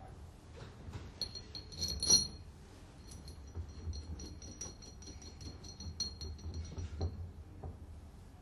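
Stainless steel screws and nuts clinking against the LKB-2 butterfly valve body as they are handled and fitted by hand: small metal taps with a sharper clink about two seconds in. A high metallic ring lingers for several seconds after it.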